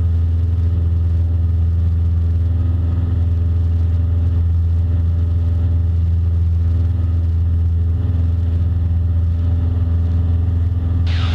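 Cessna Skyhawk's piston engine and propeller running with a steady low drone, as heard inside the cockpit. A brief rising squeak comes near the end.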